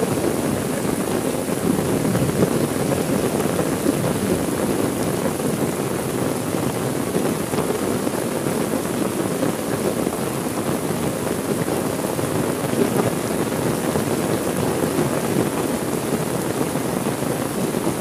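Heavy rain falling steadily, a dense, even rush of noise.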